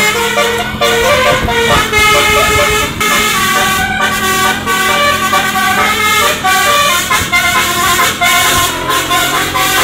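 Basuri telolet musical horn on a bus playing a tune, its several horn trumpets sounding together and changing note a few times a second.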